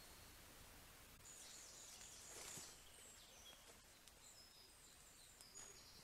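Faint woodland birdsong, short high chirps and whistles, over near silence. About two and a half seconds in there is a brief rustle as someone walks close past through the undergrowth.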